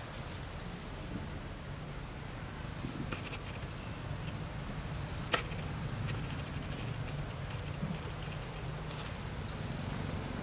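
Forest ambience: a faint, high, steady insect drone over a low rumble, with a single sharp click about five seconds in.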